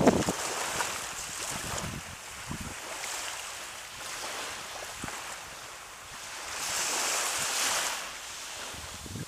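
Small waves breaking and washing up a gravelly sand beach, with a loud surge at the very start and another long hissing wash about seven seconds in. Wind rumbles on the microphone now and then.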